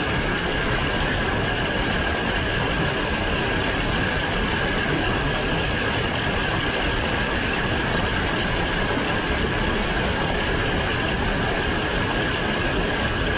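Onboard sound of a dirt-track racing kart at speed: the small engine running with a steady rushing noise, holding an even pitch and level.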